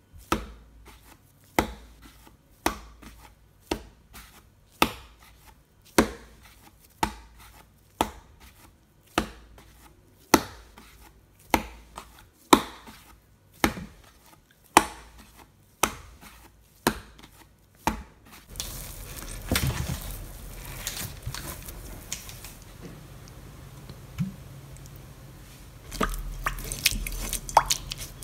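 Soft bread dough being kneaded by hand on a bamboo cutting board, with a dull thud about once a second as it is pressed and folded against the wood. After about 18 seconds the thuds stop and give way to a steady soft rubbing: a silicone brush spreading oil around a glass bowl.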